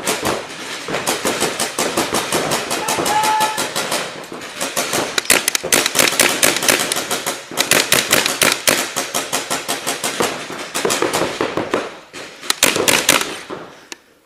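Paintball markers firing rapidly, many sharp shots a second in long strings, easing off briefly twice.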